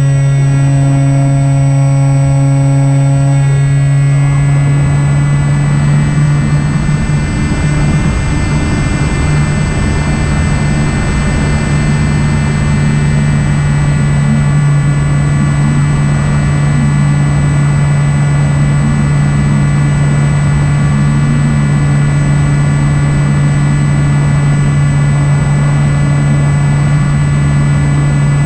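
Electric motor and propeller of an Opterra flying-wing RC plane running at a steady throttle: a loud, even drone with a haze of wind noise.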